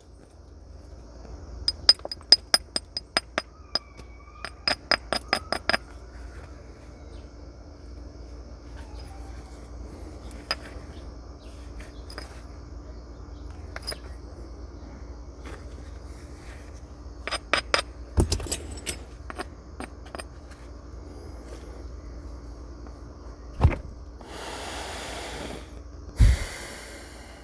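Flint being worked with natural knapping tools: quick runs of sharp, ringing clicks as the edge is tapped, with scattered single taps. Near the end comes a louder knock, then two scraping bouts of a second or so each, like stone rubbed along the edge.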